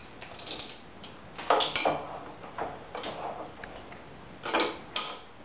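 Steel hand wrench clinking and scraping against the axle-extension bolts on a BCS walk-behind tractor's wheel hub as the loosened bolts are turned off: a few short metallic clinks, irregularly spaced.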